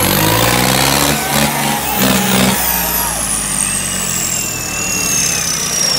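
Modified tractor's diesel engine revving hard, then easing off about two and a half seconds in, with a thin high whistle falling slowly in pitch through the rest.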